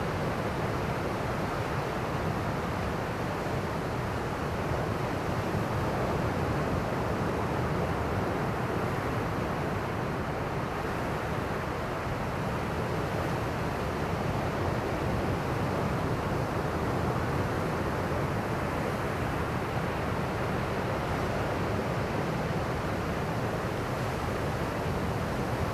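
Ocean surf washing in as a steady rush of noise, the sea carrying swell from Typhoon Doksuri, with wind buffeting the microphone.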